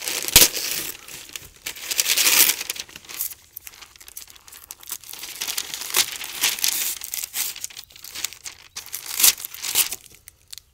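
Brown kraft wrapping paper and tape being handled, crinkled and torn open by hand in irregular rustles and rips, the loudest about half a second in and around two seconds in.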